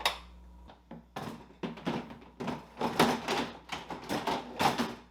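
A series of irregular knocks and clatters, the handling noise of parts being moved and set in place.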